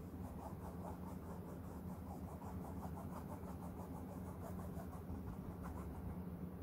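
Paintbrush dabbed and stroked quickly on a textured canvas: a rapid run of faint scratchy strokes, several a second, that stops near the end, over a steady low hum.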